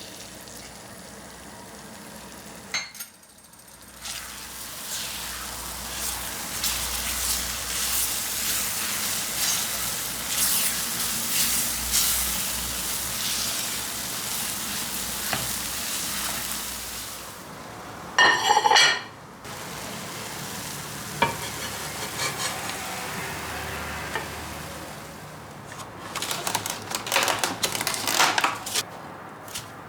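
Food sizzling in a frying pan while a utensil stirs and scrapes it, after a short break about three seconds in. About 18 seconds in a loud ringing sound lasts about a second, and quick knocks and clatter follow near the end.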